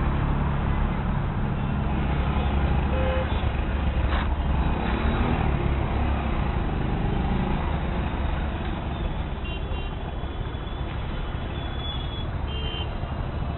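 Road traffic noise in a jam: a steady low rumble of engines, with several short car-horn toots in the second half.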